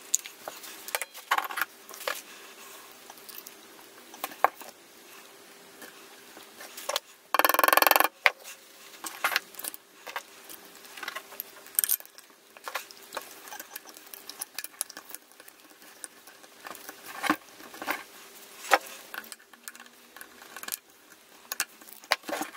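Light clicks and taps of small glass and metal parts being handled and fitted on an instrument's dial bezel, scattered irregularly, with a louder burst of hissing noise lasting under a second about seven and a half seconds in. A faint steady hum runs underneath.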